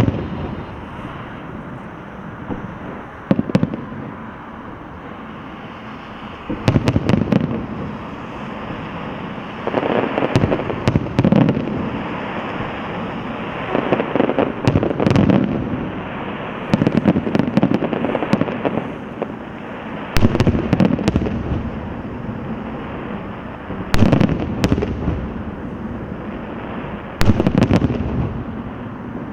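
Aerial fireworks shells bursting overhead: sharp bangs every two to four seconds, some in quick pairs, each trailed by a second or two of crackling and rumble.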